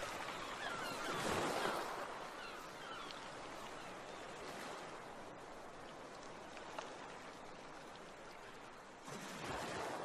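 Steady wash of rushing water like waves on a shore, swelling twice, with a few short bird calls in the first couple of seconds.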